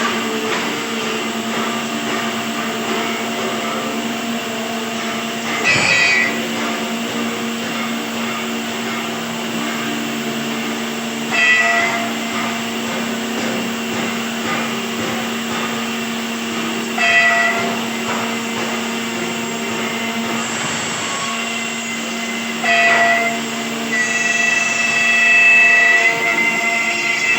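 A woodworking machine running steadily with a constant motor hum. A short, sharper cutting sound comes in about every six seconds, four times, as if a repeated pass bites into the wood.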